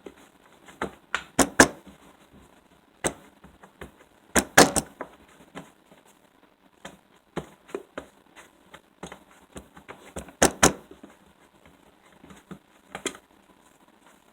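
Slime being squeezed and worked roughly by hand, giving irregular wet clicks and pops, with three louder flurries of clicking a little over a second in, around four and a half seconds in and around ten and a half seconds in.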